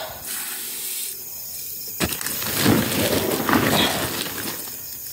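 A plastic scoop digging into a plastic fertilizer sack, the plastic rustling and the granular fertilizer scraping, with a sharp knock about two seconds in.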